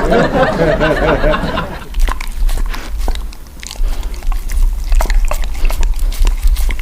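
A dog chewing and crunching food close to the microphone, with many sharp crunches and clicks. For the first two seconds a voice is heard over it.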